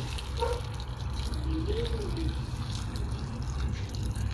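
Pork-rib broth poured in a steady stream from a stainless steel pot into a clay pot, splashing as it fills.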